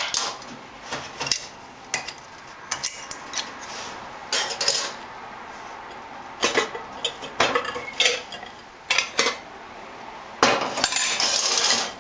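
Pyrex glass dishes and metal binder clips clinking and knocking as the clamped glass cover is unclipped and lifted off an enamelware pot, in a string of separate sharp clicks. A longer scraping rub comes near the end.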